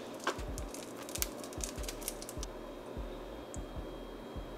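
Sauce squeezed from an upturned plastic squeeze bottle into a small bowl: a quick run of faint sputtering clicks over the first couple of seconds, thinning out after that.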